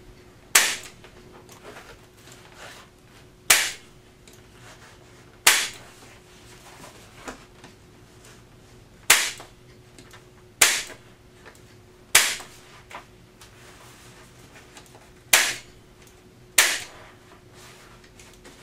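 Staple gun firing staples through upholstery fabric into an ottoman frame: eight sharp shots at uneven spacing, about one and a half to three and a half seconds apart.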